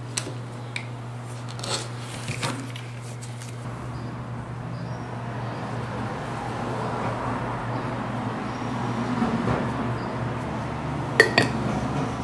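Leatherwork bench sounds over a steady low hum: a few light clicks and knocks in the first couple of seconds as a rotary cutter and steel ruler are used on nubuck and set down on a cutting mat, then rustling as the small cut piece is handled, and two sharp metallic clinks near the end.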